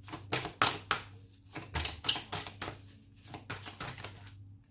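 Oracle cards being handled: a quick, irregular run of light card flicks and slaps that stops about four seconds in.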